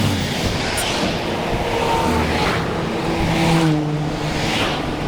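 Road traffic: vehicle engines running and cars passing close by, with engine notes rising and falling.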